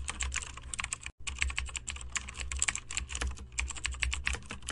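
Rapid computer keyboard typing: a dense, fast run of key clicks with a short break about a second in.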